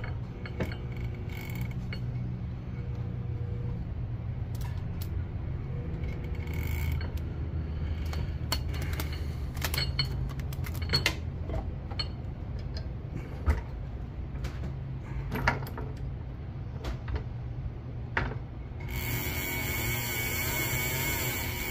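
Avet 80 big-game reel cranked steadily by hand with its clicker off, its gears turning as braided line winds onto the spool, with scattered light clicks and creaks. Near the end a steady hiss with a high whine comes in.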